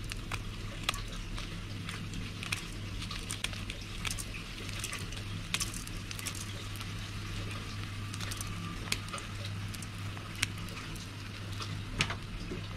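Hot oil sizzling in a wok, with irregular sharp crackles and pops as pieces of dried red chilli fry in it.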